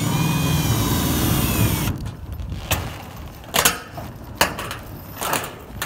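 Cordless power driver running loud and steady as it drives a roofing screw, its whine falling in pitch as it stops about two seconds in. Then four sharp knocks against a quieter background.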